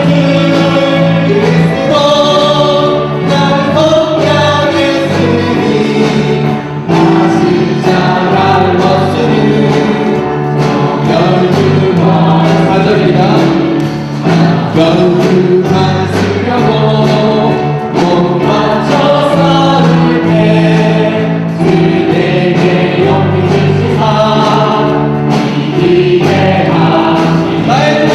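Choir singing a Christian hymn with instrumental accompaniment, the voices over a sustained bass line that changes note every second or two.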